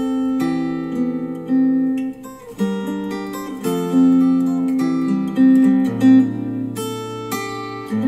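KEF Q150 bookshelf speakers, driven by an NAD C 338 integrated amplifier, playing back instrumental guitar music. The chords change about once a second, and a low bass note comes in about six seconds in.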